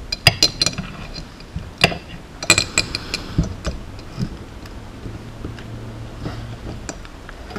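Small metal clicks and clinks from the alligator clips and jointed arms of a helping-hands stand as a flight-control board is clipped and repositioned, in quick clusters near the start and around three seconds in, then a few scattered clicks.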